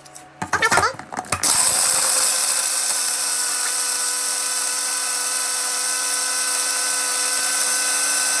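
Magic Bullet blender motor running at full speed, grinding whole dry spices (peppercorns, fennel, cumin and anise seeds) into powder. It switches on about a second and a half in and runs steadily at one pitch.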